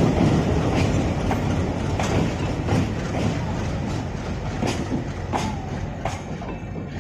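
Coaches of the Belagavi–Bengaluru Superfast Express rolling in, their wheels clattering over rail joints with sharp clacks over a steady rumble. The noise slowly fades as the train draws into the station.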